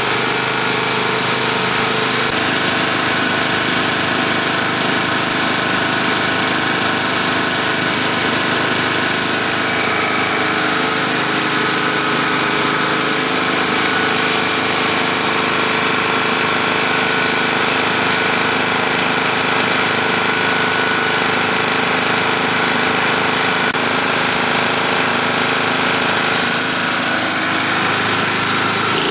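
Tecumseh engine on a walk-behind rotary lawn mower, running steadily at a constant speed.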